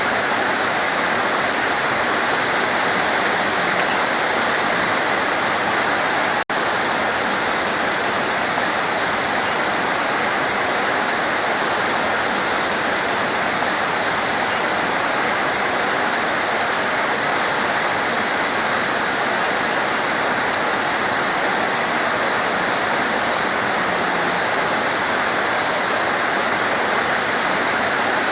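Torrential rain falling in a dense, steady hiss, with a momentary break about six seconds in.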